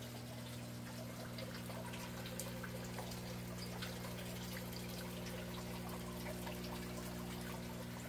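Water trickling and dripping steadily in a small indoor aquaponics system, over a steady low hum.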